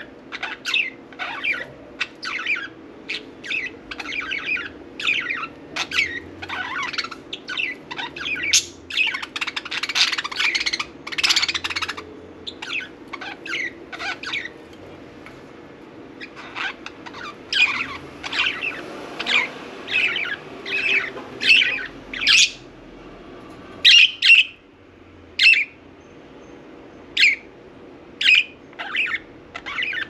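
Budgerigars chirping and chattering in a quick run of short, high calls, busiest in the middle and thinning out toward the end.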